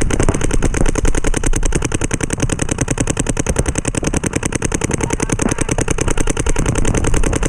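Planet Eclipse CS2 paintball marker firing a long, rapid, evenly spaced stream of shots, with no pause.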